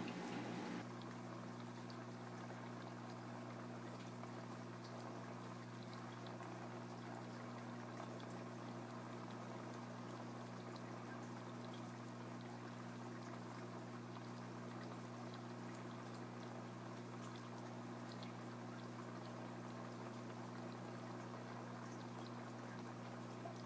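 Water running and splashing steadily in a lab octopus tank, over a steady low hum. A slightly louder sound drops away less than a second in.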